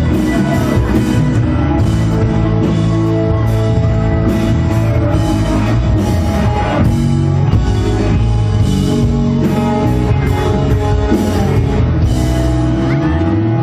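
Live rock band playing: electric guitar, bass and drums with steady cymbal strokes, loud and full. The bass drops out near the end.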